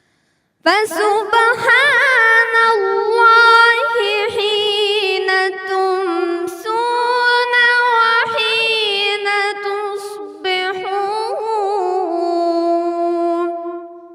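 Unaccompanied Quran recitation in melodic tajweed style: one high voice chants long, drawn-out phrases with ornamented, wavering notes, pausing briefly about ten seconds in.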